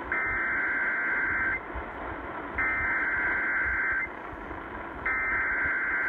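NOAA Weather Radio SAME alert header: three identical buzzing data bursts, each about a second and a half long with a second's gap, played through a weather radio's speaker over a steady static hiss from weak long-distance reception. It marks the start of a new emergency alert.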